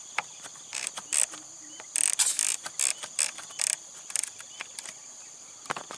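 Steady high-pitched insect buzz from the grass, overlaid with irregular sharp clicks that come in clusters about one, two and three seconds in, and once more near the end.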